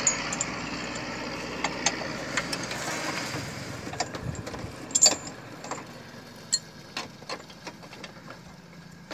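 Sharp metallic clinks and taps of a steel tow chain being hooked and fastened under a car's front bumper, the loudest about five seconds in. An engine idles underneath, fading gradually.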